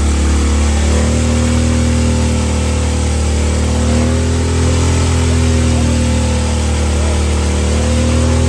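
V-twin bagger motorcycle engine held at high revs during a burnout, loud and continuous, its pitch rising and dipping a few times.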